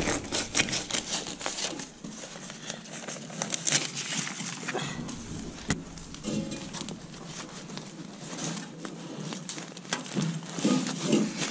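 Foil-covered insulated flexible ventilation duct crinkling and rustling as it is handled and worked onto a round metal spigot, with many small irregular clicks.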